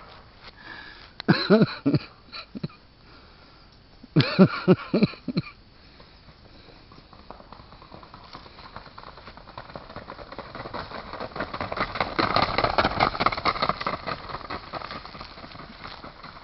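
Hoofbeats of a keg-shod single-footing stallion at speed: a fast, even patter that grows louder from about six seconds in, peaks, then fades as he goes by. Two loud shouts come in the first five seconds.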